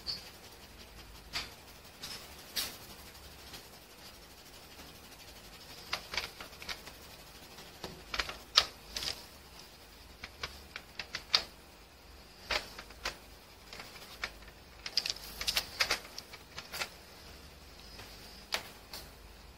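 Coloured pencil tip tapping and scratching on paper in short, quick strokes: irregular sharp clicks, some coming in quick runs.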